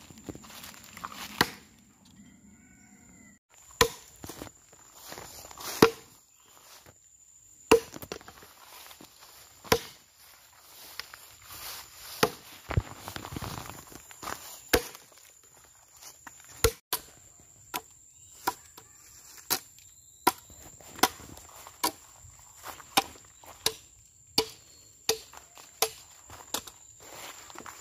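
Machete chopping into a solid wooden log to hollow it out, each blow a sharp crack of blade on wood. The strokes come singly, a second or two apart, at first. About two-thirds of the way through they quicken into a regular run of roughly one or two chops a second.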